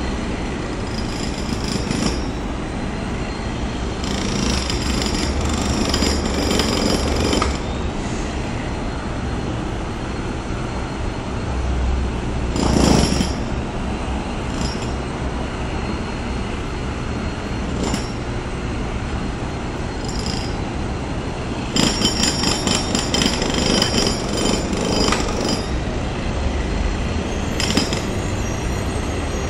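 Jackhammer breaking up sidewalk concrete in several bursts of rapid hammering, over a steady hum of passing street traffic.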